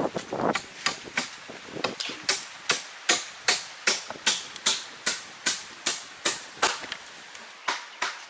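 Brisk footsteps on a hard surface: sharp, evenly spaced knocks about two and a half a second, thinning out near the end.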